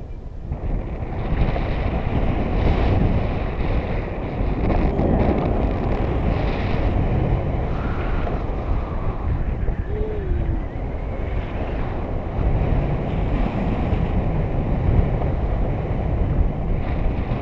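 Wind rushing over a pole-mounted camera's microphone during a tandem paraglider flight, a steady rumbling buffet.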